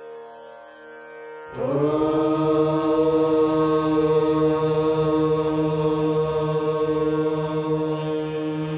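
Voices chanting one long, held mantra note, coming in about a second and a half in over a quieter steady drone.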